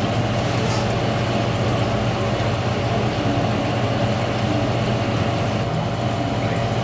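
Steady, even mechanical hum with a low drone and a few constant higher tones.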